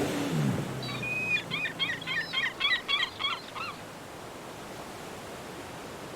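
Seagulls calling: a rapid run of about ten short, sharp cries, after a low tone that slides down and dies away at the very start. A faint steady hiss follows.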